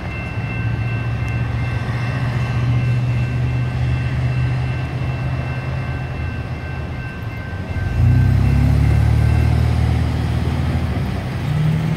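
Electronic crossing bell of a General Signals Type 2 ringing with a steady high tone while the crossing gates rise. It stops about seven and a half seconds in, once the activation ends. Under it road vehicles idle, and from about eight seconds in engines get louder as traffic pulls away across the tracks, one rising in pitch near the end.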